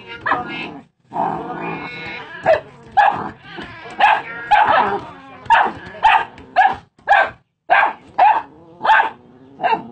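A dog barking repeatedly in short, quick barks, about two a second, from a couple of seconds in until near the end.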